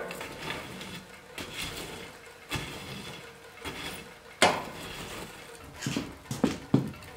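Metal poker raking hot coals in a wood stove's firebox, scraping and clinking against the stove's metal. A string of knocks and clunks follows as split firewood is loaded onto the coals, the loudest a little past halfway and several more close together near the end.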